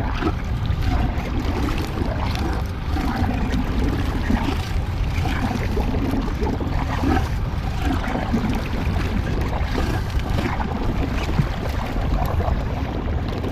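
Steady wind rumble on the microphone over water splashing and lapping beside a small boat, as a hooked fish thrashes at the surface next to the landing net.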